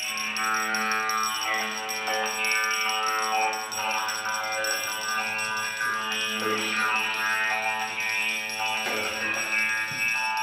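Music played on homemade glass-bottle instruments, including a string bowed over a large bottle resonator, holding long sustained notes that change pitch every second or two.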